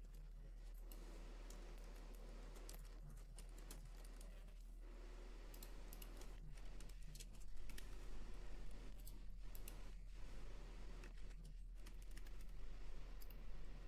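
Computer keyboard typing: short runs of key clicks, busier in the second half, over a steady low hum.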